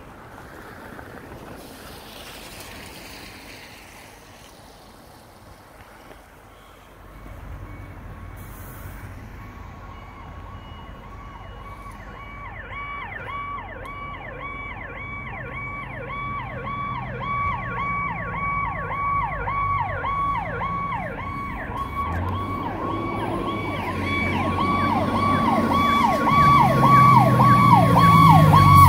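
Fire engine approaching with its electronic siren on a fast yelp of about three sweeps a second, getting steadily louder over the rumble of its engine. Before that, about seven seconds of faint wind and street noise.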